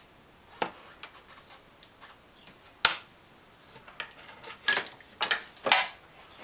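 A few separate light metallic clicks and clinks of hands handling the alternator's wiring and a small socket and nut in a truck's engine bay, with one sharper knock a little before the middle and three more clicks close together near the end.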